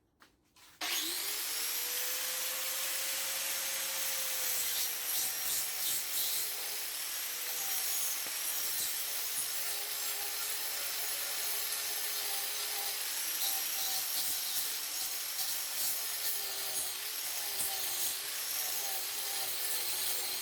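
Angle grinder fitted with a Kutzall shaping dish starting up about a second in, then grinding bark off a silver birch log. The motor's whine settles steady, then dips and wavers as the carbide dish bites into the wood over a continuous rasping hiss.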